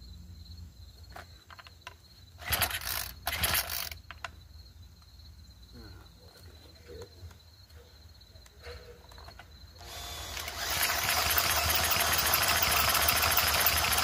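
Cordless drill used as an electric starter, spinning over the 25cc engine of a Craftsman mini cultivator: two short bursts about two and a half and three and a half seconds in, then a long steady run from about ten seconds in.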